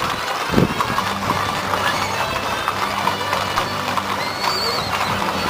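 Hooves of several Tennessee Walking Horses clip-clopping on an asphalt street as a line of riders walks past, the strikes uneven and overlapping.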